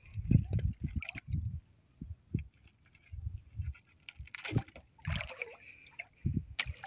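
Irregular low thumps and knocks on a small wooden boat as someone crouches in it handling things on its floor, with a couple of brief rustles a little past the middle.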